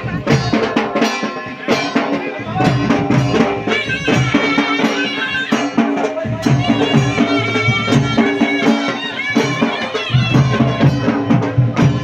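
Traditional Himachali folk wedding music: drums beating a busy rhythm under a wind instrument playing a melody.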